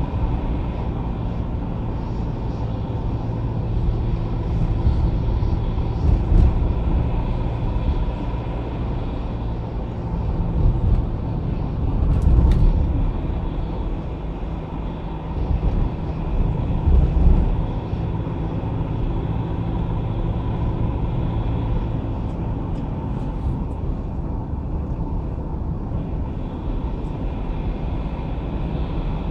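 Car driving in city traffic: steady engine and tyre road noise. The low rumble swells louder a few times, about 6, 12 and 17 seconds in.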